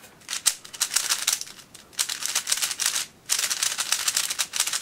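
Plastic clicking and clattering of a brand-new Dayan 50 mm mini 3x3 speedcube being turned fast by hand, in quick runs of turns with short pauses about two and three seconds in. The cube is a little greasy with lubricant and still slightly tight.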